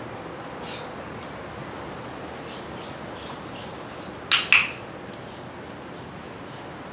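A dog-training clicker clicked once about four seconds in, a sharp double click-clack from press and release, marking the dog's behaviour during shaping. Fainter ticks, the dog's claws on the tile floor, come and go.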